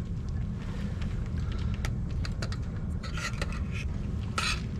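Light handling clicks and clatter, with two short scraping or rustling bursts about three seconds in and near the end, over a steady low rumble.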